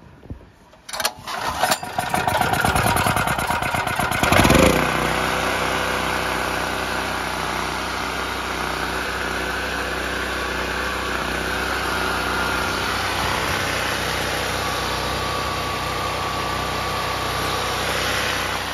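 Firman 4550/3650-watt portable generator's single-cylinder engine being pull-started with the recoil starter. It catches about a second in, surges briefly after a few seconds and then runs smoothly and steadily on its freshly cleaned carburettor.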